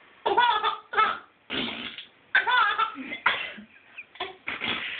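A baby laughing in a string of short giggling bursts, set off by someone making fart noises.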